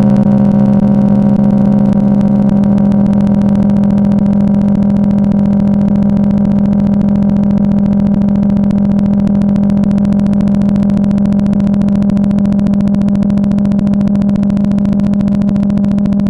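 Steady buzzing drone at one unchanging low pitch, rich in overtones, fading very slightly.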